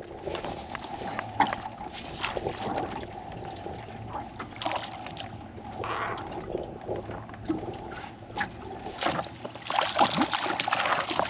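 Water sloshing around a small aluminium boat, with scattered knocks and clicks of fishing gear and a faint steady hum underneath. Near the end a hooked kokanee splashes at the surface beside the landing net.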